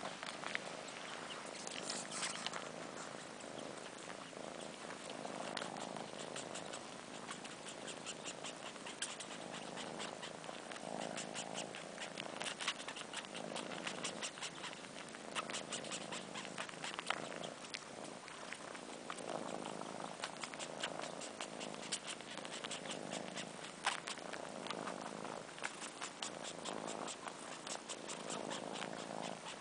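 Kittens purring steadily close up, the purr swelling and fading in a slow, even rhythm, with rapid wet sucking and slurping clicks over it from a kitten suckling on fur as if nursing.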